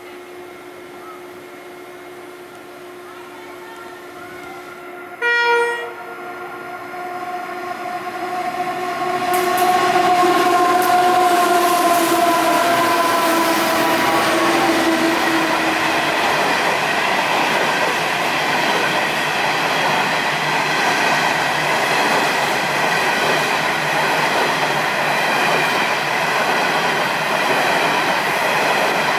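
Coal train led by a class 93 diesel-electric locomotive approaching and passing. The engine hum grows louder, with a short horn blast about five seconds in, and the engine tone drops slightly as the locomotive goes by. The steady rolling noise of the coal wagons follows.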